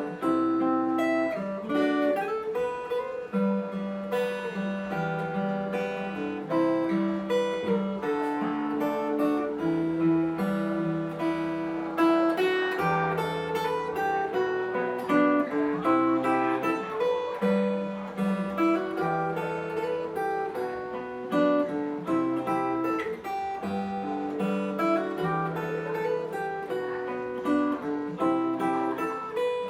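Copy of a Taylor 314ce steel-string acoustic-electric guitar played fingerstyle: a picked melody over plucked bass notes, played without a break.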